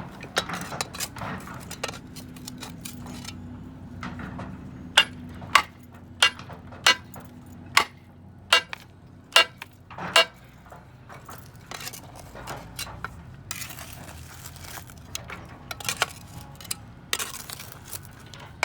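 Steel clanking and scraping on a scrapped forklift's fork tine, then a run of about nine sharp metal-on-metal strikes, one every two-thirds of a second or so, as the tine's retaining pin is worked loose. Rougher scraping follows near the end.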